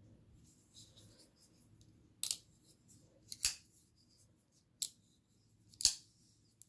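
Benchmade 940 folding knife's AXIS lock snapping as the blade is swung open and shut: four sharp clicks about a second apart, with faint ticks of handling before them.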